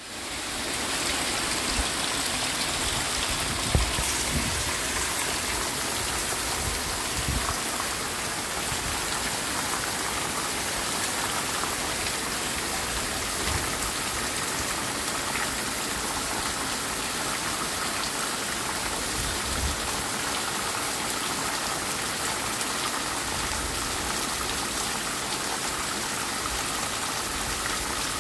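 Heavy hurricane rain pouring steadily on grass and pavement, with short low rumbles from wind gusts now and then.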